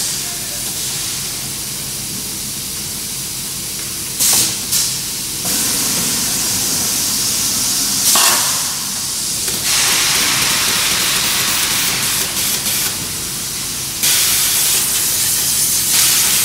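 Shell core shooting machine hissing steadily, with sharper bursts of hiss about four seconds in and again about eight seconds in.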